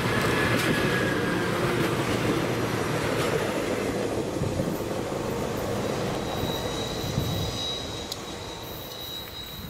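A Budd rail diesel car set (RDC-3 and RDC-1) passing close by and running away: engine and wheel-on-rail noise loudest at first, then fading steadily. A thin high steady tone comes in during the last few seconds.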